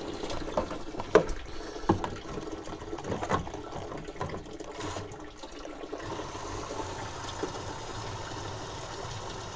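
Flush water from a garden hose, pushed through a car's cooling system, pouring out of a disconnected coolant pipe and splashing into a bucket of water. Near the start a few sharper splashes stand out. About six seconds in the pouring settles into a steadier noise.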